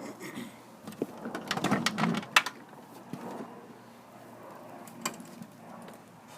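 Handling noises from working on a walk-behind lawn mower's underside: a cluster of clicks and rattles about a second in, a sharp knock about two and a half seconds in, and a single click about five seconds in.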